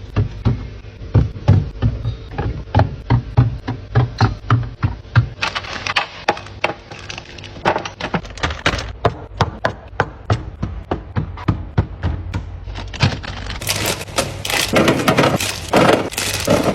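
Quick, repeated clacks and knocks of hard containers and packages being set down and stacked while a freezer is restocked, about three or four a second. There is a busier, rustling stretch near the end.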